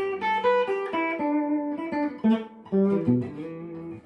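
Electric guitar picking single notes of the E minor pentatonic scale at the fifth fret, one after another at about four notes a second, with a brief gap about two and a half seconds in.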